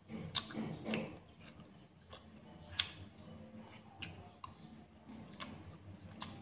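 Metal spoon and fork clicking and scraping against a plate while eating, in a series of irregular sharp clicks, with soft chewing between them.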